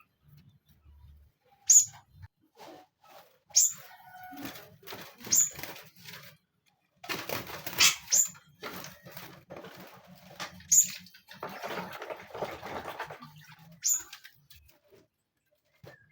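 Caged songbirds fluttering and rustling about, with a short, sharp call every couple of seconds.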